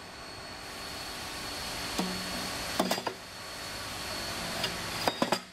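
Aluminium mold insert and mold platen giving sharp metallic clicks and knocks as the insert is handled: once about two seconds in, a quick cluster near three seconds, one more later and another cluster near the end. Under them is a steady machine noise that slowly grows louder.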